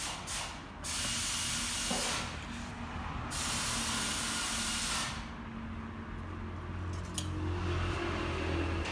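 Two long bursts of hissing, like a spray or a release of air, each lasting one to two seconds, over a low steady hum.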